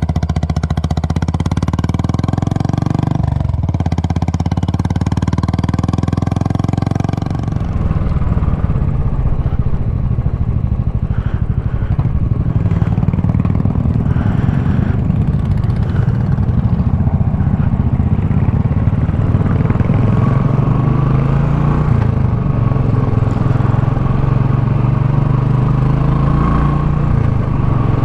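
Royal Enfield Classic single-cylinder motorcycle engines idling steadily, then, from about eight seconds in, a Royal Enfield running under way on the road, its engine pitch rising and falling as it changes speed.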